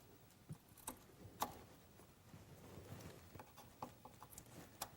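Faint, scattered clicks and light scrapes of a chisel pushed by hand, paring and cleaning out a lock mortise in wood: a handful of soft ticks a second or so apart.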